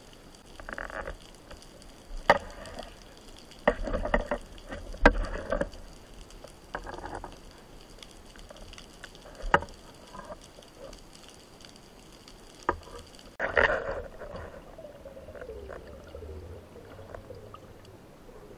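Underwater sound picked up by the speargun camera: a run of sharp clicks and knocks and short bursts of bubbling, rushing water as the freediver moves and handles the gun, with a longer bubbling burst about two thirds of the way in that trails off.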